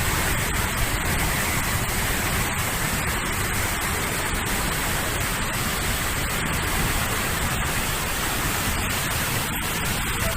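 Waterfall pouring, a loud, steady rush of water.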